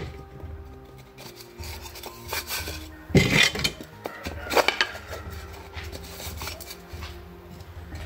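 Plywood pieces and a metal rod scraping and rubbing against each other as they are handled, in a handful of separate strokes, the loudest about three seconds in, over a low steady hum.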